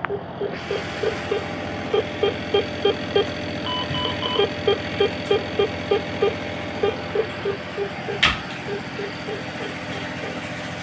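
Neonatal bedside monitor beeping steadily, about three short beeps a second, over the steady hum of NICU equipment. A brief higher tone pattern sounds about four seconds in, and a sharp click comes near the end.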